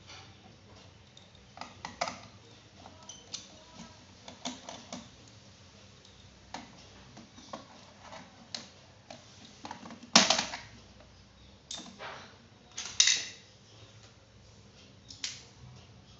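Irregular clicks and knocks of a laptop's hard plastic and metal parts being handled, with two louder knocks about ten and thirteen seconds in.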